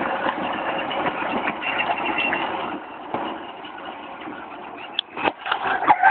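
Youth quad bike's motor running steadily, a little quieter from about three seconds in, with a few sharp knocks near the end.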